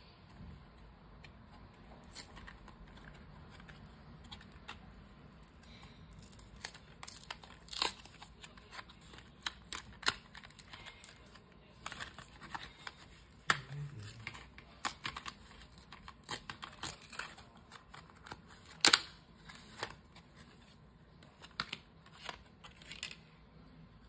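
Plastic blister pack and its card backing crackling and tearing as they are peeled apart by hand, in irregular crackles, rustles and sharp clicks, with one loud snap about three quarters of the way through.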